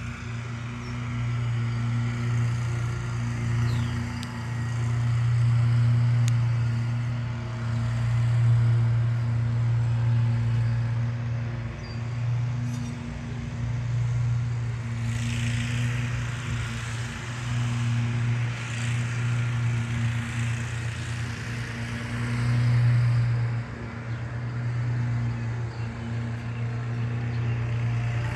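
A motor running with a steady low drone that swells and eases in level, with a hissing noise in the middle.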